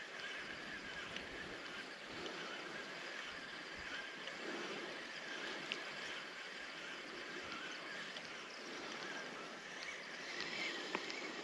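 Faint, steady rush of flowing water with a couple of small clicks.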